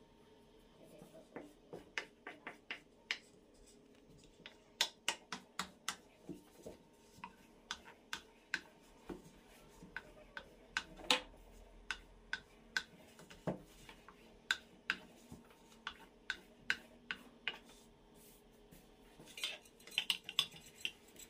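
Sharp, irregular clicks and taps of a kitchen utensil against a dish or tray, about one or two a second, with a quick flurry of taps near the end.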